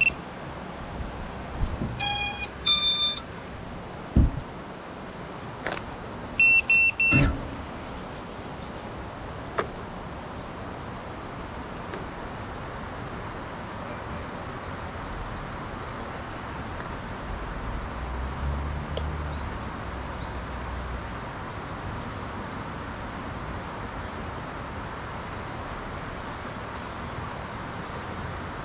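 Short electronic beeps from a GEPRC Mark5 FPV quadcopter sitting on the ground, the start-up tones of a powered but unflown drone, in two quick groups in the first seven seconds. A low thud comes about four seconds in. Then only steady outdoor hiss with faint high chirps.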